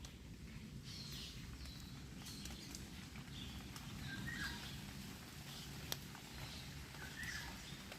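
Footsteps on a hiking trail, scattered irregular steps over a steady low rumble, with short bird chirps about four seconds in and again near the end.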